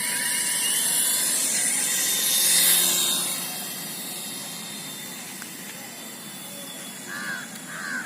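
A high hissing whir, like a small motor spinning fast, swells to its loudest about two and a half seconds in and then fades to a lower steady hiss. Near the end come three short calls.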